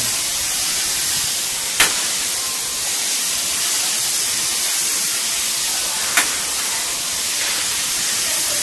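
Freshly filled bag-on-valve aerosol can of silicone spray hissing steadily as it sprays. Two sharp clicks come about two and six seconds in.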